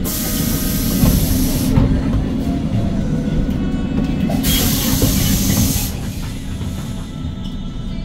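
Hyundai Green City city bus's CNG engine running steadily, with two bursts of compressed-air hiss from the bus's pneumatic system, the first lasting about a second and a half and the second starting about halfway through.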